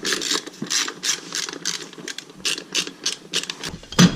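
Socket ratchet wrench clicking in steady back-and-forth strokes, about three to four a second, spinning off the wheel nuts of a Honda three-wheeler's rear hub. A single loud knock near the end.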